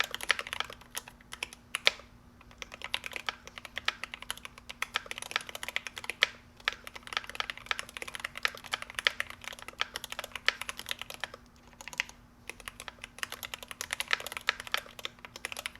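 Fast continuous typing on a GMMK Pro mechanical keyboard with lubed Gateron Black Ink v2 linear switches on an aluminum plate, with brief pauses about two and a half seconds in and around twelve seconds. A faint steady hum runs underneath.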